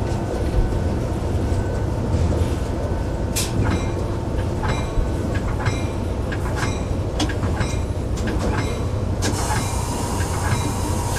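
Cab of an EMD F59PH diesel locomotive in motion: a steady low engine and running rumble, with the wheels clicking sharply over the track from a few seconds in. A hiss comes up near the end.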